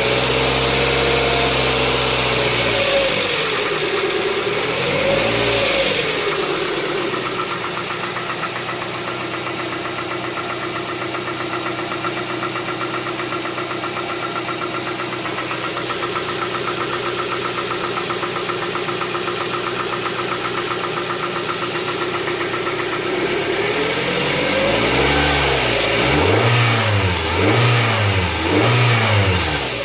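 Hyundai Tucson 2.0 16-valve inline-four engine running: revved once about five seconds in, settling to a steady idle, then revved about four times in quick succession near the end. It carries the noise that the engine makes on cold starts and loses after about 10 km of driving, which a mechanic puts down to the hydraulic lifters (tappets).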